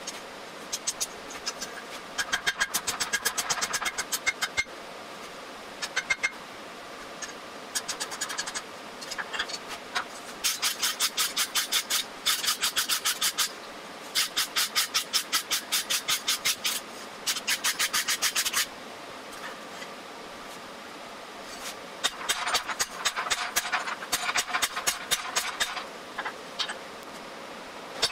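Fast back-and-forth scraping of a wire brush on forged steel, about seven strokes a second, in runs of one to three seconds with short pauses.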